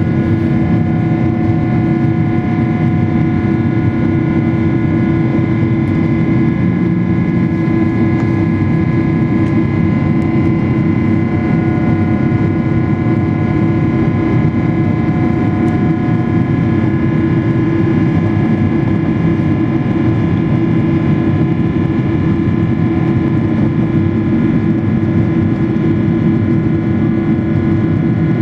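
Cabin noise inside a Boeing 777-300ER: a steady, loud jet-engine roar with several fixed-pitch whining tones, with the engines held at a constant setting.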